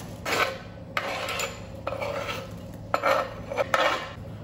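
A metal spoon scraping chopped tomato and onion off a wooden chopping board into a glass bowl of puffed rice, in about five short scrapes and knocks.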